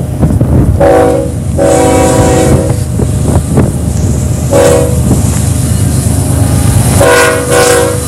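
Air horn of an approaching BNSF diesel freight locomotive sounding five blasts: a short one and a longer one near the start, a short one near the middle, and two short ones close together near the end. Under the horn runs the steady low rumble of the lead locomotives' engines.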